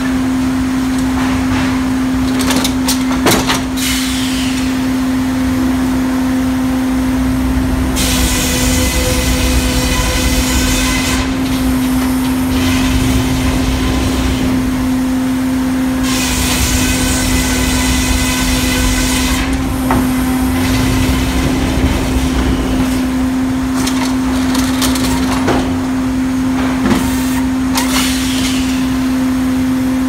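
Hurdle circular sawmill running with a steady hum. Its headsaw cuts through a beech log twice, starting about eight seconds in and again about sixteen seconds in; each cut is a loud, high-pitched ringing whine that lasts about three seconds. A few sharp knocks are heard between the cuts.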